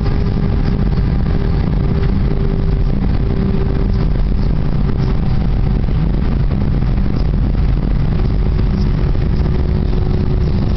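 Airbus A320-200's jet engines at low taxi power, heard inside the cabin over the wing as the airliner rolls along the taxiway: a steady low rumble with a faint constant hum.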